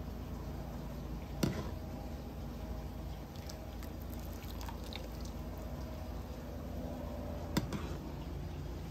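Pot of chicken cooking in soy sauce on a stove burner, with a steady low rumble and faint liquid sounds. Two sharp knocks, like a utensil striking the pot, come about a second and a half in and again near the end.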